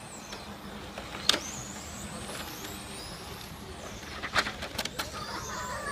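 Radio-controlled touring cars' motors whining on the track, several high whines rising and falling in pitch as the cars speed up and slow down. A sharp knock comes about a second in, and a cluster of sharp knocks comes between four and five seconds in.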